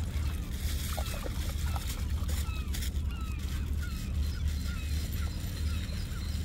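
Waterfowl calling: many short sliding calls, a few a second, over a steady low rumble.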